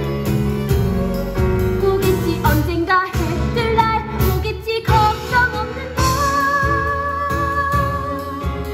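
A woman singing a musical-theatre song over instrumental accompaniment, with her pitch wavering. From about six seconds in, a long note is held.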